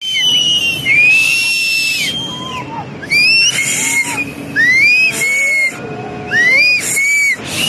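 Several people shrilly whistling and screaming in alarm, a string of high calls that each rise, hold and fall, some overlapping, over a steady rushing noise.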